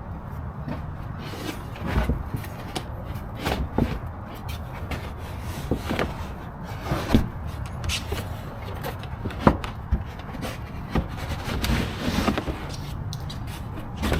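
Packaging being handled and opened by hand: scattered rubbing and scraping with light knocks, over a steady low rumble.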